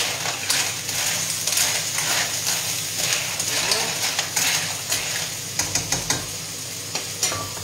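Porcini mushrooms sizzling in a frying pan in oil and a splash of water while a utensil stirs them, scraping against the pan, with a few sharp taps in the last couple of seconds.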